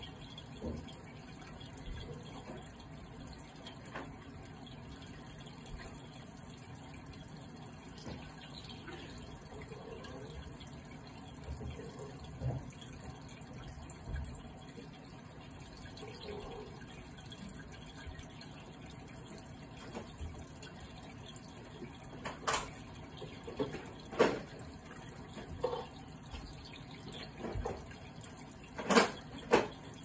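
Microwave oven running with a steady hum while tinfoil inside it arcs and sparks, giving sharp crackling pops that come more often in the last third, the loudest two close together near the end.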